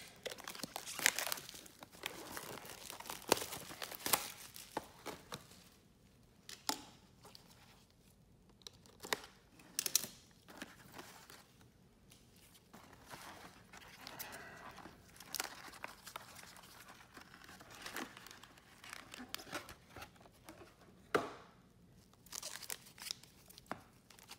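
Cellophane shrink-wrap being torn and peeled off a trading-card hobby box, then the wrapped packs handled: crinkling and crackling in uneven spurts with sharp snaps, and a few short quieter pauses.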